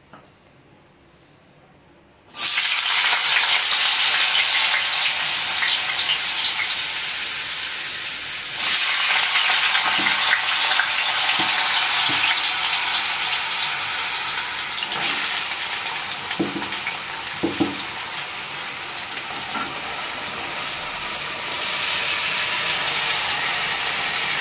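Wet potato cubes sizzling in hot oil in a metal kadai. The sizzle starts suddenly a couple of seconds in as the first cubes go in, and gets louder each time more are tipped in; the water still on the potatoes makes the oil spit hard. A few light knocks sound in the middle.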